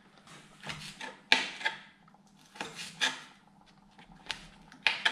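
Kitchen knife cutting small orange chili peppers on a plastic cutting board: a series of unevenly spaced blade taps and short scrapes on the board.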